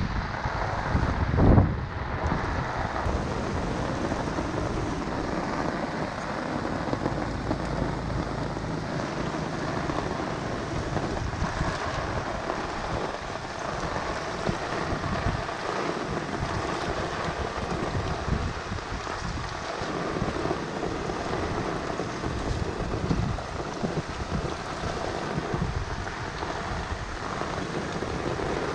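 Steady rain falling on the wet street, a continuous even hiss, with one brief loud thump about a second and a half in.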